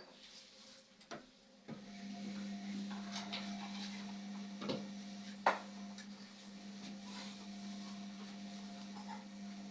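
Indesit washing machine mid-cycle: after a couple of clicks, a steady electric hum starts abruptly about two seconds in and keeps going, with a few sharp knocks on top.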